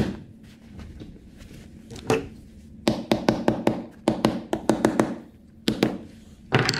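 A small hammer tapping the headrest guide sleeves down into the top of a car seat back to seat them fully. There is a sharp knock at the start, then a quick run of about a dozen taps at roughly five a second, then a few more taps near the end.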